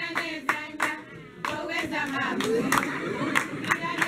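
A group of students clapping their hands in a steady rhythm, about three claps a second, for a dance, with a short break in the clapping about a second in. Voices sing along under the claps.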